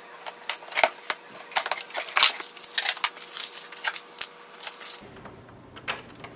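Cardboard box and plastic packing being handled while a printer is unpacked: a quick run of crackling, rustling and sharp clicks. About five seconds in it gives way to a few lighter clicks as a power cord is plugged into the back of the printer.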